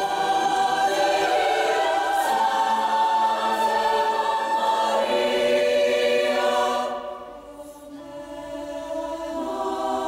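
Large women's choir singing held chords. It drops quieter about seven seconds in, then swells back up.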